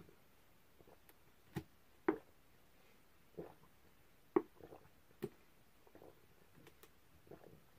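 A person gulping soda from an upturned plastic two-litre bottle: short, irregular swallowing sounds, about one a second, the loudest a little past the middle.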